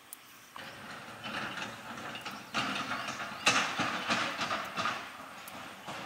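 Bamboo spatula stirring a clay pot of braising broth with lemongrass and balut eggs: the liquid churning and sloshing, with irregular clicks of the spatula and eggs against the pot. It starts about half a second in, is loudest in the middle and fades near the end.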